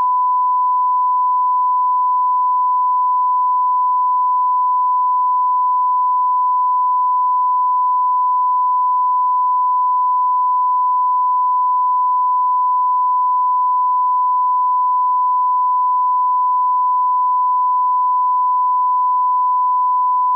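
Steady 1 kHz test tone: one unbroken pure beep, unchanging in pitch and level.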